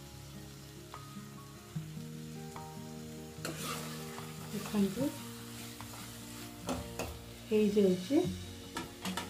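A spatula stirring and scraping a thick, sizzling onion-tomato masala in a nonstick kadai. The stirring picks up about three and a half seconds in, with loud, squeaky scrapes around five seconds and again around eight seconds.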